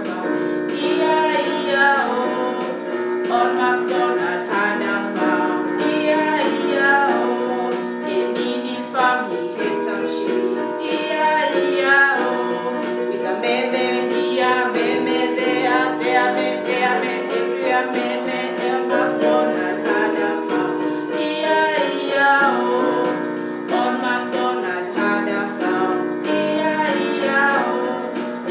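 Music: a woman singing a short children's song over instrumental backing.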